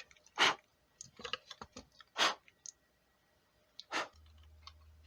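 Sharp clicks and knocks of a plastic flashlight body being handled and put back together, three loud ones among lighter taps. A faint low hum comes in about four seconds in, just after a click.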